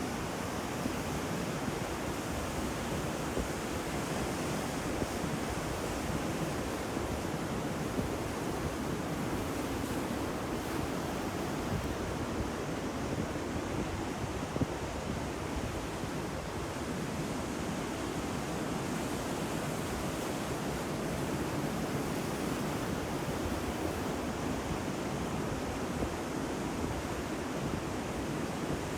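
Ocean waves breaking on a shore: a continuous, steady surf wash with some wind.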